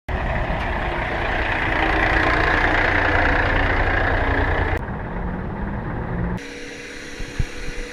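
Heavy engine running steadily with a deep rumble. The sound changes abruptly twice, about five and six and a half seconds in, and is quieter in the last stretch, with a few knocks.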